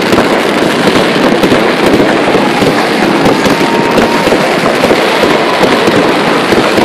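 Fireworks going off: a dense, continuous crackling and popping of bursting sparks, loud throughout.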